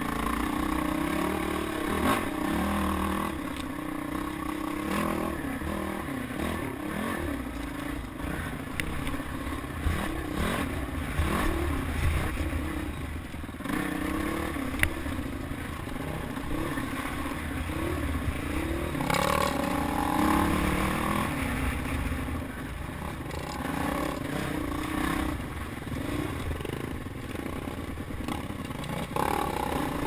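Dirt bike engine running and revving up and down as it climbs a rough, rocky trail, with rattling and scraping from the bike over the ground and a sharp knock about halfway through.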